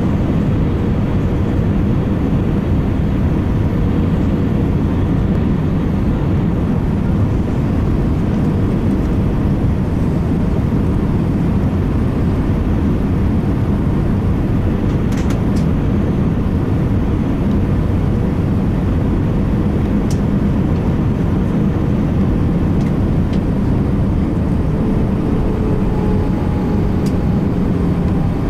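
Steady low rumble of a jet airliner's engines and airflow, heard inside the cabin over the wing during final approach and landing. A faint whine enters and rises in pitch near the end.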